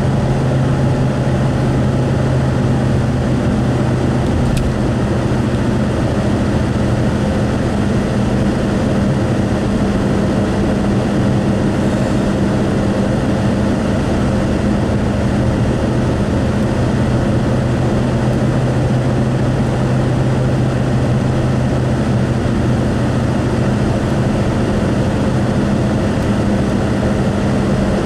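Steady road and engine noise of a car cruising at highway speed, heard from inside the cabin, with a steady low hum under the tyre and wind rush.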